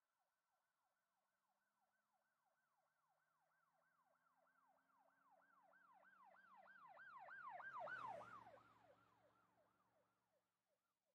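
Faint emergency-vehicle siren rapidly sweeping up and down about three times a second, growing louder to a peak about eight seconds in and then fading as the vehicle passes by.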